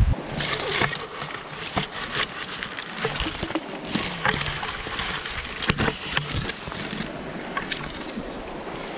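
Grass and shrub branches brushing and scraping against the camera as it pushes through dense brush, an irregular crackling rustle, over the steady rush of a river.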